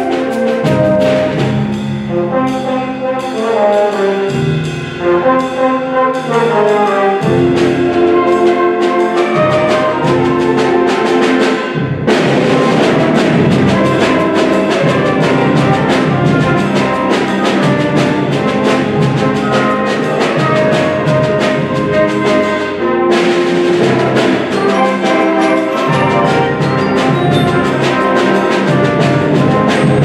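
School concert band playing: a lighter passage of moving melodic lines, then the full band with brass comes in loud about twelve seconds in, thins briefly a little past twenty seconds and builds again.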